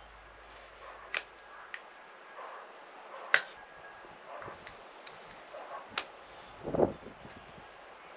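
Sharp, scattered clicks and taps of a thin screwdriver working at the rope pulley of a chainsaw's recoil starter while the knot of the starter rope is picked out, a few strikes a second or two apart, the loudest about three seconds in. A short, duller, lower scuffle comes about seven seconds in.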